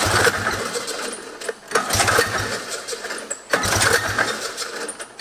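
Rotary-engined 1971 Arctic Cat Panther snowmobile being pull-started three times in a row, each recoil pull turning the engine over for about a second and a half without it catching.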